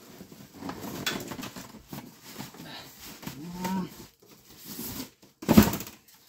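Scuffing and handling noises, a short low moaning voice about three and a half seconds in, then one loud knock near the end.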